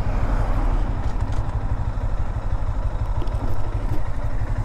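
Honda Hornet 2.0 motorcycle's single-cylinder engine running at low speed as the bike slows to a stop, a steady low rumble.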